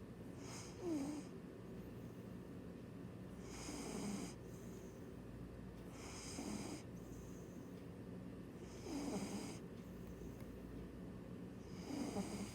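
A sleeping cat snoring, five snores about two and a half to three seconds apart.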